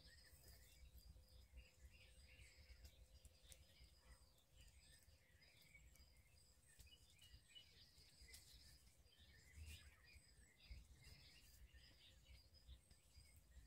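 Faint woodland birdsong: several small birds chirping and calling on and off, over a thin steady high note and a few light ticks.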